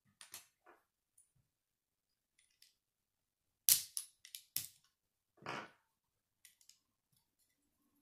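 Plastic Lego bricks clicking and knocking together as pieces of a small model car are handled and pressed into place: scattered light clicks, with a quick run of sharp snaps a little under four seconds in and a longer rattling click soon after.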